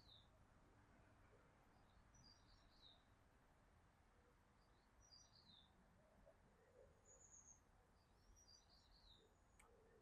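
Near silence with faint birdsong: short falling chirp phrases repeating every couple of seconds, and a faint click near the end.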